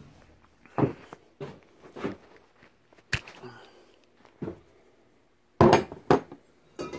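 Short, irregular knocks and thumps from hands, tools and the phone bumping around the engine bay, the loudest two close together about six seconds in.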